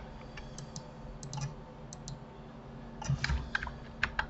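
Computer keyboard keys and mouse buttons clicking: a few scattered single clicks, then a quicker run of several near the end.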